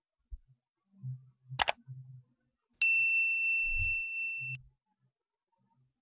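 Subscribe-button animation sound effect: a sharp click, then about a second later a single bright bell ding that rings on for nearly two seconds.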